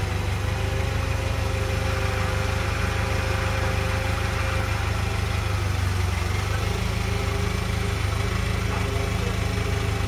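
Komatsu forklift's engine running steadily as it maneuvers, with a faint steady whine over the first few seconds.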